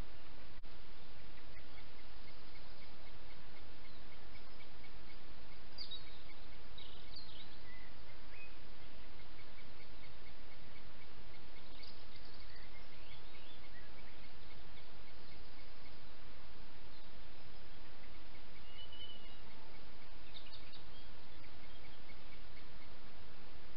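Steady hiss from a trail camera's microphone, with scattered short high chirps of small woodland birds. Runs of quick, evenly spaced ticks come and go, and there is a single click about half a second in.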